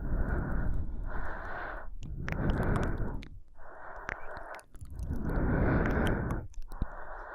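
Close-miked woman's breathing for ASMR: slow, deep breaths in and out, each lasting about one to one and a half seconds with short pauses between them.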